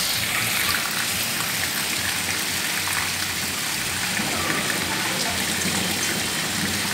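Heavy rain mixed with hail pouring onto a wet concrete yard: a steady hiss of rain with faint scattered ticks of hailstones striking the ground.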